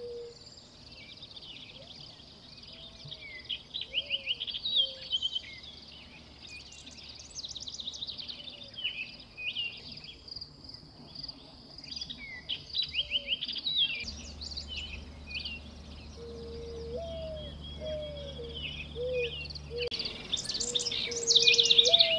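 Small birds chirping and twittering in quick high bursts, with a short lower sliding call recurring now and then; the chirping is loudest in a burst near the end.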